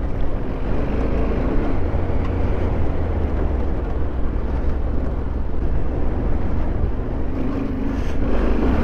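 Yamaha Ténéré 700's parallel-twin engine running on the move, under a heavy low rumble of strong wind buffeting the microphone.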